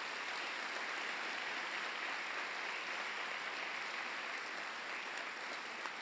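A large seated audience applauding steadily, many hands clapping at once, at the close of a speech.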